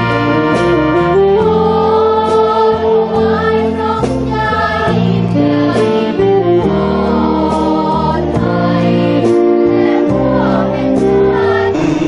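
A group of students singing a song together, led by a man singing into a microphone, with instrumental accompaniment under a steady beat.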